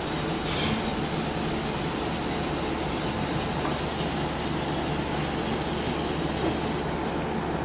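Vehicle lift lowering a car with a steady hiss over a low rumble. There is a short sharper hiss about half a second in, and the higher hiss stops near the end.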